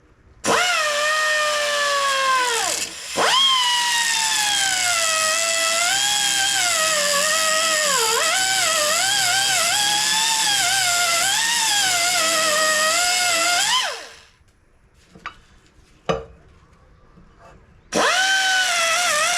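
Small 2-inch die grinder with a cutting wheel whining at high speed as it cuts away the staked metal holding a door hinge pin, its pitch dipping and wavering as the wheel bites. It stops briefly near the start and catches again, winds down about two-thirds of the way through, and starts up again near the end.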